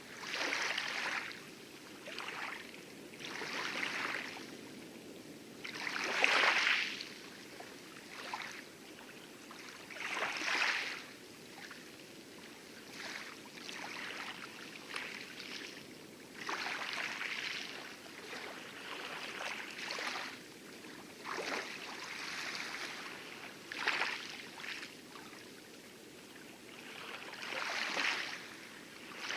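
Small lagoon waves lapping and splashing against coral in irregular swells every second or two, over a steady low rumble of heavy surf breaking on the outer reef.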